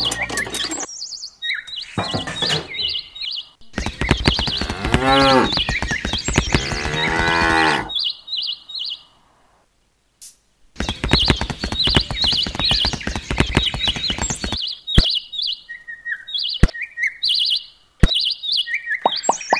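A cow mooing: one long call with a rising-and-falling pitch from about four to eight seconds in, over high bird chirps that repeat through the rest.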